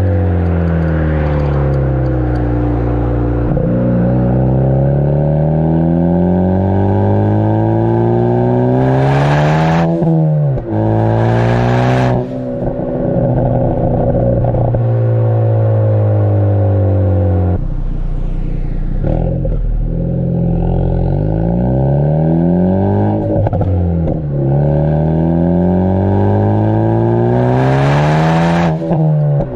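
Ford Focus ST's tuned turbocharged four-cylinder through a Borla cat-back exhaust, heard close to the tailpipe, pulling hard with its pitch climbing and then dropping sharply several times as it goes through the gears. Each time the throttle lifts there are short noisy bursts: the pops and crackles of the tune.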